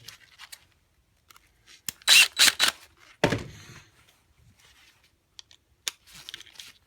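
Tool and plug handling while a wire is fastened under a plug terminal screw: a few short, scratchy bursts about two seconds in, then a single louder knock, with faint handling noise around them.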